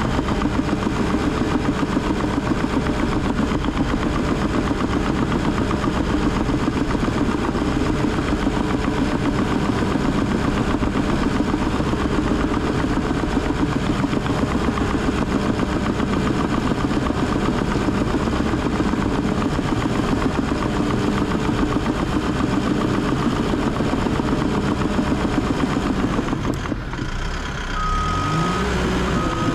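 Cat D3 dozer's diesel engine running steadily under load while it pushes and rakes debris. Near the end the engine drops briefly, then revs back up with a rising pitch, and the backup alarm beeps as the machine reverses.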